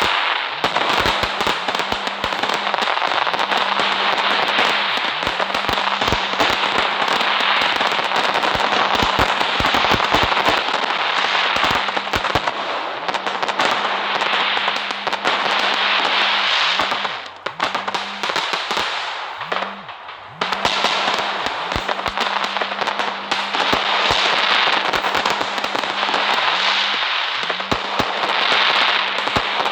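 Fireworks crackling continuously, a dense stream of sharp pops and crackles. It thins out briefly a little past halfway, then picks up again.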